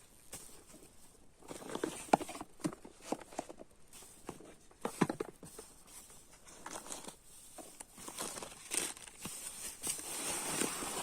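Irregular rustling and crinkling with scattered clicks and knocks, the sound of camping gear being handled and unpacked, with sharper knocks about 2 and 5 seconds in and a denser rustle near the end.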